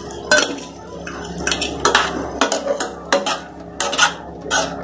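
Spatula stirring a thick sauce with chicken pieces in a metal wok, scraping and knocking against the pan in about ten irregular strokes.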